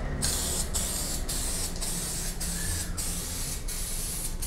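Aerosol can of Diton Premium 9128 2K clear coat hissing in about seven short bursts of half a second each, as the second coat of clear is sprayed on in passes.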